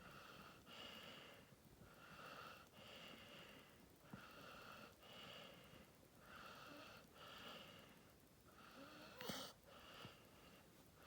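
Staffordshire bull terrier snoring softly in its sleep: a hissy breath in and out about every two seconds, six breaths in all, with one brief sharper, louder sound a little past nine seconds in.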